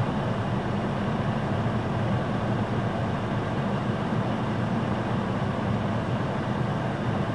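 Steady low hum of an idling vehicle engine, heard from inside the cab.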